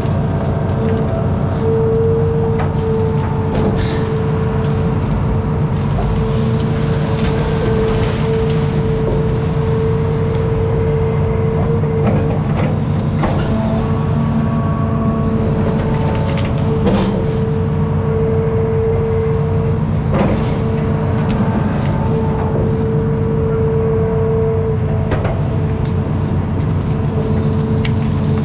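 Diesel engine of a Hitachi ZX210F amphibious excavator running steadily, with a whine that comes and goes and a few sharp knocks.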